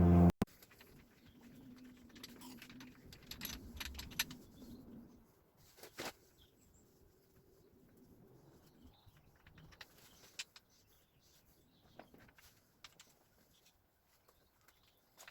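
Sparse light clicks and clinks of tools and metal engine parts being handled, the clicks bunched in the first few seconds and then single ones further apart.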